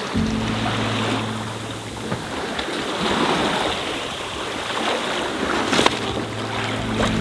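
Sea water rushing and splashing along the hull of a sailboat under sail, a steady wash with a single sharp knock about six seconds in.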